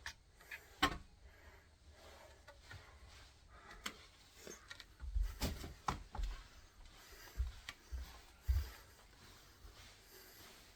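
Handling noise from carrying bed parts: scattered light knocks and rubbing, with a run of low thuds in the middle and two more near the end.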